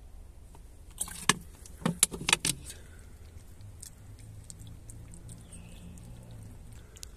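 A quick run of sharp clinks and clatters about a second in, from the stainless steel dog bowl and plastic water bottle being handled. After that comes faint wet lapping as a small puppy drinks water from the bowl.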